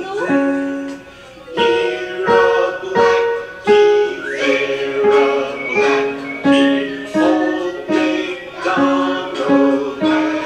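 Grand piano played by a young beginner: a simple, slow melody struck at a steady pace of about one and a half notes a second, each note ringing on.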